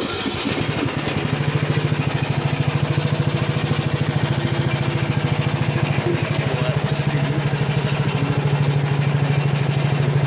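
Riding lawnmower's small engine running steadily with a fast, even pulse.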